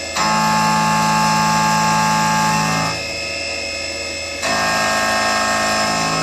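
CNC milling machine's 20 mm end mill cutting the outside profile of a metal bearing holder at 3000 RPM, a steady whine of several pitches. It is loud for the first three seconds and again from about four and a half seconds in, and drops back quieter in between.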